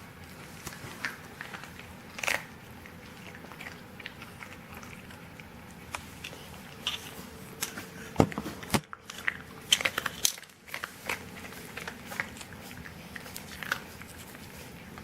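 A pet chewing and crunching a Fromm treat: irregular sharp crunches, busiest from about eight to eleven seconds in.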